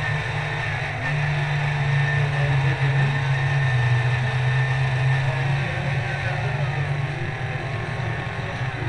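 Radio-controlled model truck running, a steady low drone.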